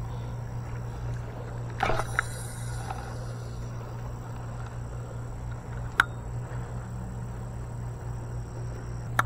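A fishing rod being cast with a topwater lure: a brief swish about two seconds in, then a faint hiss. After it comes a low steady hum with two sharp clicks, one near the middle and one near the end.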